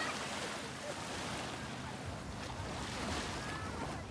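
Small waves washing up a coarse sandy shore and draining back, a steady hiss of surf that swells a few times.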